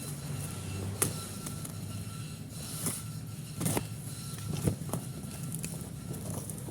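Handling noise: a few sharp clicks and knocks, spaced a second or so apart, over a steady low hum.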